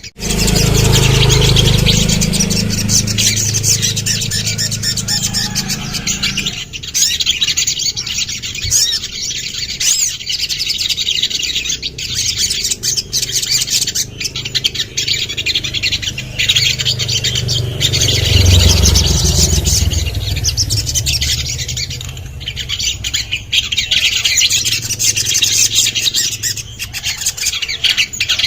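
Little spiderhunter (sogon) calling continuously in rapid, sharp high chirps. A low rumble runs under the calls for the first few seconds and again about two-thirds of the way through.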